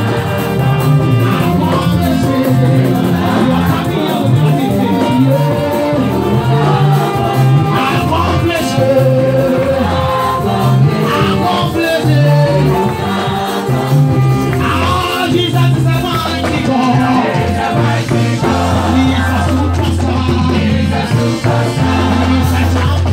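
Upbeat live gospel praise music: a worship team singing into microphones with the congregation singing along, over a dance-rhythm accompaniment with a heavy stepping bass line.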